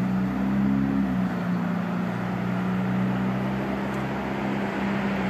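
Steady low machine hum: a few held droning tones over a constant hiss, with no sharp cracks or rumbles.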